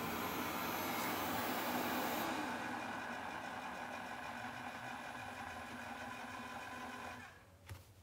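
Wyze robot vacuum running: a steady whir of its fan and spinning brushes. The sound eases a little about two seconds in, then falls away about seven seconds in, with a single click near the end.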